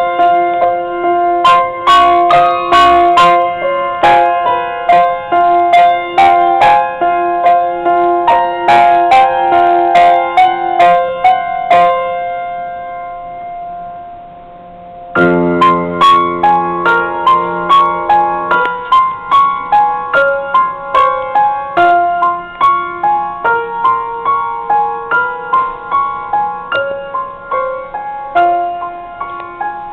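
Grand piano being played: a flowing line of struck notes that dies away to a soft held sound a little before halfway, then a loud low chord about fifteen seconds in, held for a few seconds before the melody resumes.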